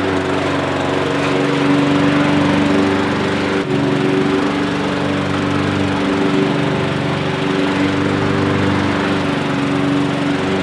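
Walk-behind petrol rotary lawn mower running steadily under load as it is pushed through grass, with one brief dip in loudness a little under four seconds in.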